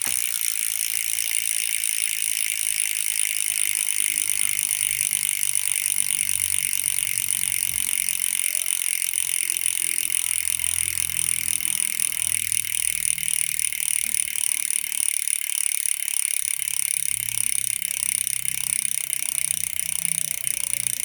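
Crankbrothers Cobalt 1 rear hub freewheeling: its steel three-pawl freehub clicks in a fast, steady buzz as the wheel spins.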